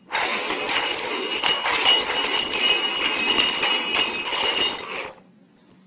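Containers being shuffled and slid around on a hard surface: a continuous rattling, jingling scrape for about five seconds that stops suddenly.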